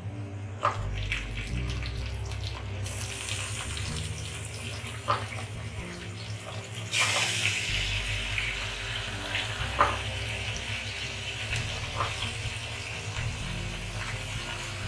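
Marinated chicken pieces going into hot oil and fried onions in a pot, sizzling, with the sizzle growing louder about seven seconds in as more pieces go in. A few sharp knocks against the pot come through.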